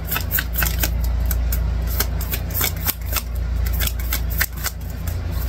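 A deck of oracle cards being shuffled by hand: a quick, irregular run of papery clicks, over a steady low hum.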